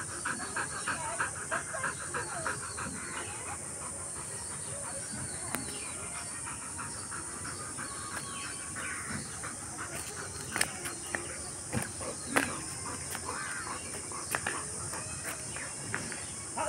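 Golden retriever puppy panting quickly for the first few seconds, then chewing on a small round object, with scattered sharp clicks of teeth on it in the second half. A steady high hiss runs underneath, with faint bird calls.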